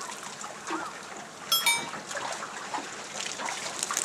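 Water trickling and splashing, with two quick ringing clinks about a second and a half in.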